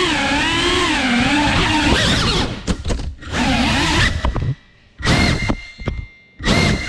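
FPV quadcopter's motors whining, the pitch rising and falling with throttle. After about two and a half seconds the sound breaks into short loud bursts with near-quiet gaps as the throttle is cut and punched again, with the drone flipping upside down.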